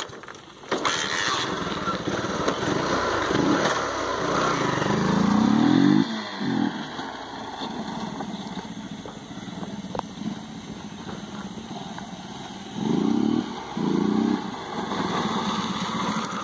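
Honda Shine motorcycle's single-cylinder four-stroke engine running with its air filter removed, ridden away and back. Its note climbs for a few seconds to its loudest and drops off sharply about six seconds in. It then runs lower, with two short blips of throttle near the end.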